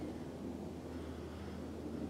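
Steady low background rumble with a faint, even hum underneath; no distinct event stands out.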